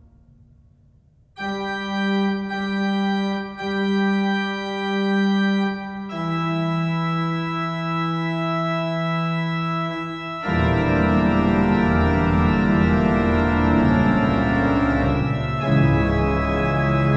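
Pipe organ: after a brief pause, a slow single-line melody of long held notes comes in; about ten seconds in, loud full chords with deep bass notes take over.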